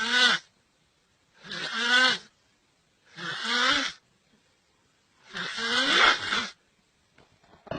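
A person snoring: rasping snores with a groaning pitch to them, a new one about every one and a half to two seconds, with silence between.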